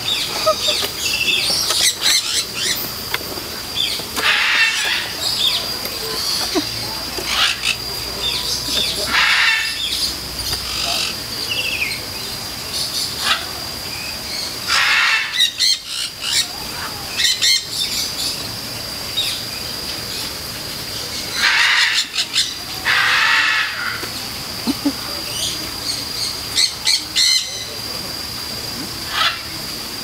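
Sulphur-crested cockatoos giving repeated harsh screeches, each about half a second to a second long, every few seconds, over a steady high-pitched whine.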